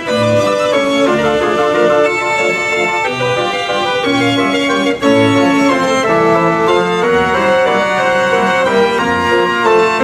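Andreas Ruth fairground organ playing a tune: a melody over repeated bass notes and held accompanying chords.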